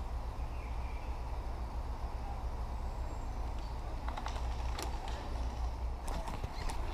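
Steady low rumble of wind on the microphone, with a scattering of sharp clicks starting about four seconds in and coming closer together near the end, typical of airsoft guns firing.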